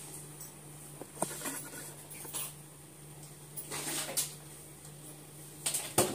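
Scattered light knocks and clicks of things being handled, with a louder pair near the end, over a steady low hum.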